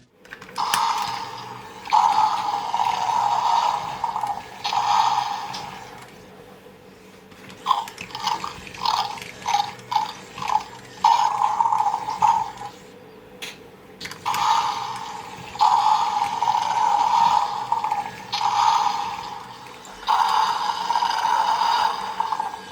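Battery-powered motorized toy T. rex running, its small speaker playing crackly roar sound effects in repeated bursts of a second or two, with a run of short quick bursts about halfway, over the steady hum of its motor.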